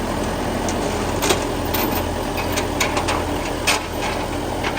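Case 580B backhoe's engine running steadily at idle, with several sharp metallic clanks and clicks over it.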